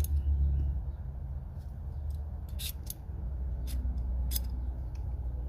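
Hand pliers being handled and worked, giving a handful of sharp, irregular metallic clicks over a steady low hum.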